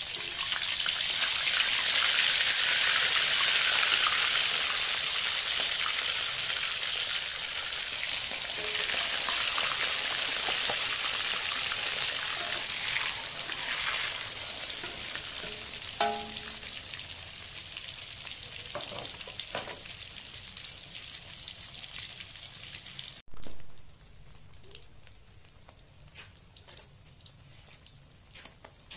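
Small whole fish frying in hot oil in a wok: a loud, steady sizzle that swells as the fish go in, then slowly dies down and is much quieter near the end. A short clink about halfway through.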